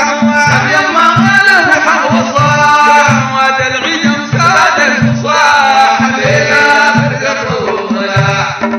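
Sudanese madeeh, a Sufi praise song for the Prophet: a male voice sings a chanted melody over a steady deep drum beat of about two strokes a second.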